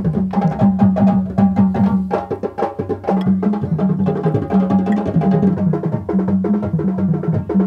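Traditional drumming: drums struck in a fast, busy rhythm, with a steady run of rapid strokes and a recurring deeper drum tone underneath.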